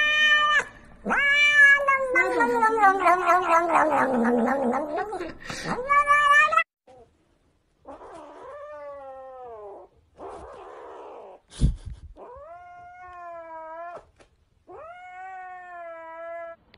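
A cat yowling loudly in long, wavering cries for about six seconds. After a brief pause, a kitten gives about four quieter meows, with a single sharp knock between the second and third.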